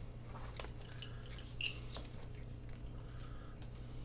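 Light rustling and a few soft clicks of a motorcycle wiring harness being handled, its plastic quick-connect plugs knocking together, over a steady low hum.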